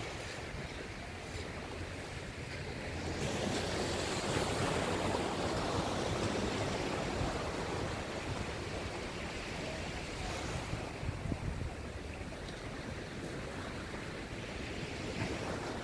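Small surf breaking and washing up a sandy beach, a steady rush that swells louder for several seconds in the middle.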